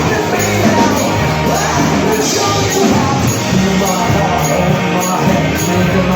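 Background rock music with a steady beat and singing.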